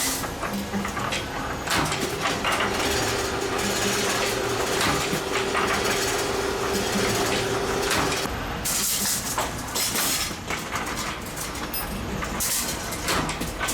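Spring-making machine running: continuous mechanical clatter with many clicks, a steady hum through the middle, and two short hisses, one about two-thirds through and one near the end.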